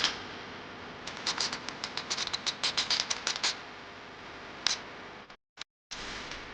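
A quick run of small clicks and taps, about eight a second, lasting a couple of seconds. A single sharp click comes at the start and another near the end, and the sound cuts off abruptly twice.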